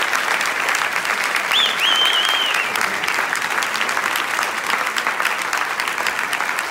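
Audience applauding, a dense steady patter of many hands clapping. A high wavering whistle rises over it about a second and a half in and holds for about a second.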